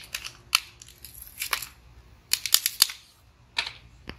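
Sharp clicks and light rattles of a spark plug and its socket being handled, about half a dozen separate clicks and a quick run of five or so about two and a half seconds in.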